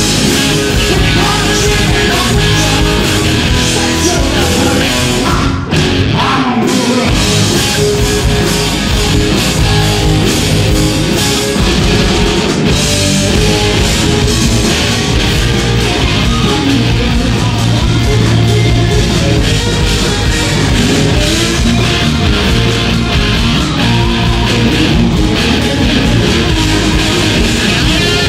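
A live rock band playing loud, with distorted electric guitars, bass guitar and drums. The low end drops out briefly just before six seconds in.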